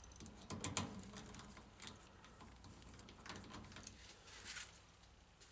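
Faint, scattered clicks and light knocks of small parts being handled and fitted, a few separate taps spread over several seconds.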